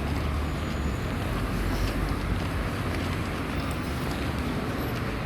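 Busy street traffic: a steady rumble of vehicles running past.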